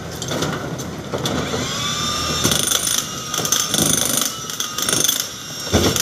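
Handheld electric demolition hammer (jackhammer) breaking up a concrete block wall. Its motor whine rises about two seconds in, then comes in loud bursts about twice a second as the bit works the wall.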